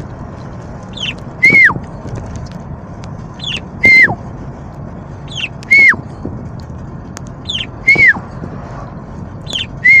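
A whistled two-note phrase repeated five times, about every two seconds: a short high chirp, then a louder note that holds and drops sharply. Under it runs the steady low rumble of a car cabin.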